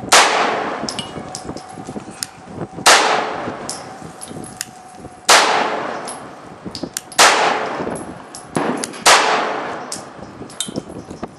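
Five 9mm pistol shots from a Ruger P89, fired slowly about two seconds apart, each crack followed by a ringing echo that dies away over a second or so. Fainter sharp cracks and clicks fall between the shots.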